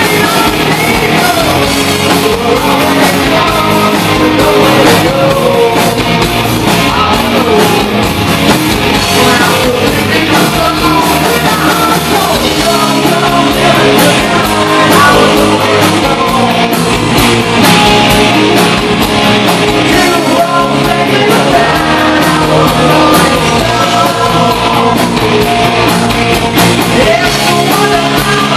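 Live hard rock band playing loud, with a male lead singer singing over electric bass, electric guitar and drums.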